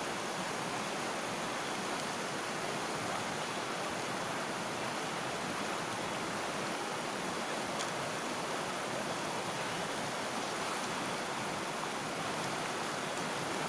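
Steady rush of a shallow river flowing around boulders.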